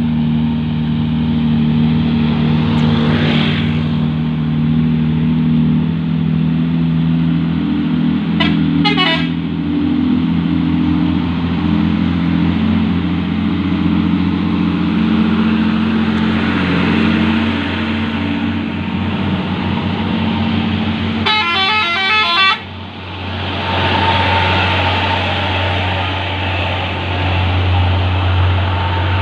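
Heavy truck diesel engines running steadily, with a short double horn blast about nine seconds in and a loud, longer blast of a truck air horn just past twenty seconds that cuts off sharply.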